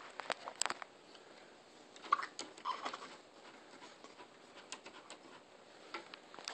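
Newborn baby hiccupping: two short hics about two seconds and nearly three seconds in, among soft clicks and light rustling.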